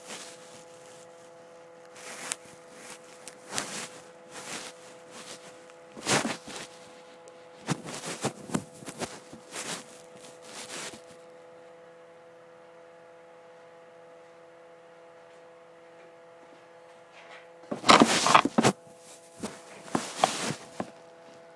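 Scattered knocks, bumps and clatter from things being handled and the phone moving close to the body, in irregular groups through the first half and two louder clusters near the end, over a steady electrical hum.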